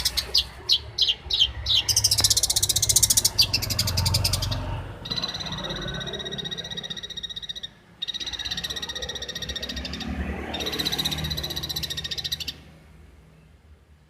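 Long-tailed shrike (cendet) singing. It opens with a fast, high rattling chatter and sharp chips, then gives two long, even buzzing trills with a short break between them, and falls quiet about a second and a half before the end.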